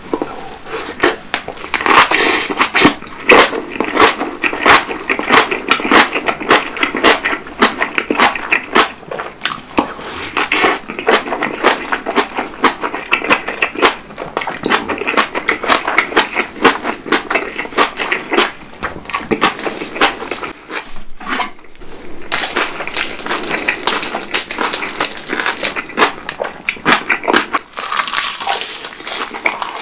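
Close-miked chewing and crunching of napa cabbage kimchi with white rice: a dense run of wet crunches, with a short lull about two-thirds of the way through. Near the end it is rice wrapped in roasted laver being chewed.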